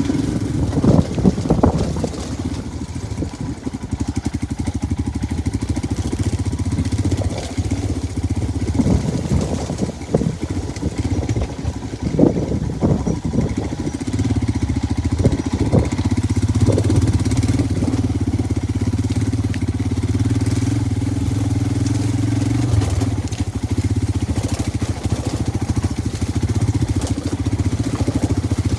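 Motorcycle engine running as the bike is ridden, a steady low drone with scattered knocks and clatter over the first half, settling into an even, steady pitch from about halfway.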